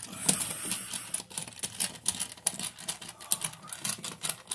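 Screwdriver driving the mounting screw of a wall outlet into its box: a run of quick, irregular clicks and scrapes of metal on metal as the handle is turned.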